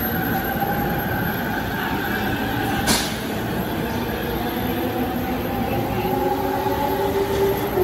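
Yellow-striped JR Chuo-Sobu Line local electric train moving along the platform: a steady rumble of wheels and running gear, with a motor whine that slowly rises in pitch as the train picks up speed. A single sharp clack comes about three seconds in.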